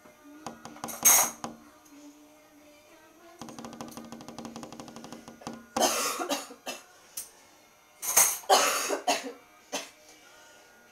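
Small Löwchen dogs barking in short sharp barks, one bark about a second in and then several in quick clusters in the second half. A buzzing, evenly pulsed sound lasts about two seconds in the middle.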